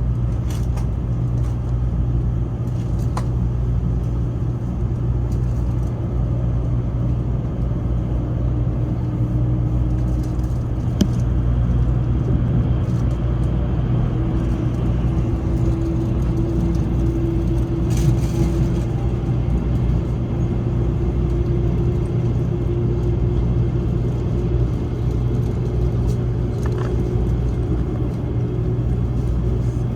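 Interior cabin noise of a Taiwan High Speed Rail train under way: a steady low rumble and hum. A faint whine rises slowly in pitch through the middle, with a few light clicks and knocks.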